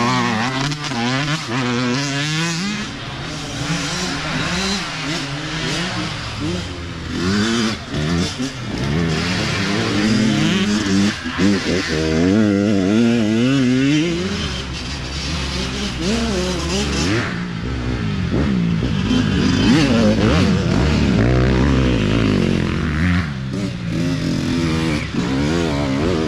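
Dirt bike engines revving up and down as riders pass one after another on a trail, with one bike going by close at the start and another approaching near the end.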